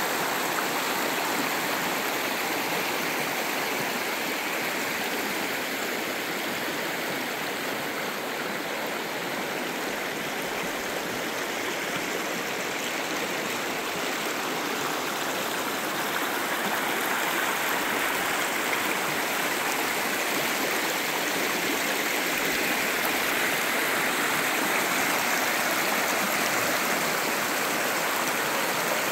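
Shallow, rocky river rushing over stones in small rapids: a steady rush of water, a little louder in the last few seconds.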